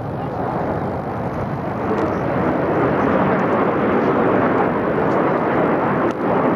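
Jet engines of an aerobatic display formation passing overhead: a steady roar without a clear pitch that grows louder about two seconds in and then holds.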